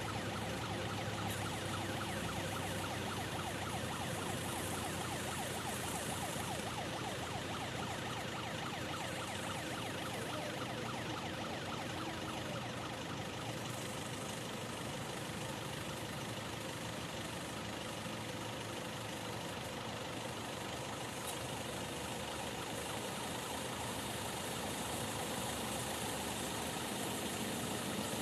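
Diesel engines of excavators idling steadily.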